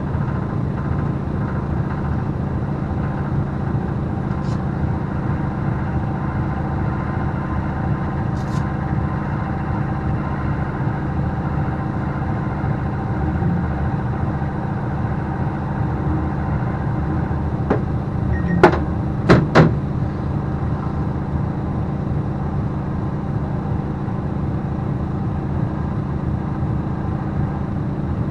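Alfa Romeo 147 JTD turbodiesel engine running at a steady engine speed, with no revving. A few sharp knocks about two thirds of the way through are the loudest sounds.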